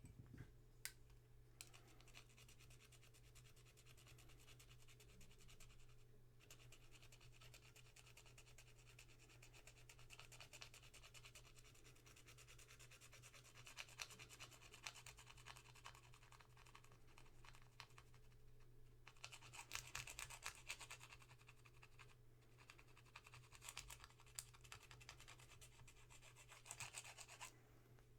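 Faint scratching and rubbing in spells of quick strokes: a metal contact of a vintage jeep headlight switch being scraped and rubbed clean of a gummy, sticky film, busiest about two-thirds of the way through. A steady low hum sits underneath.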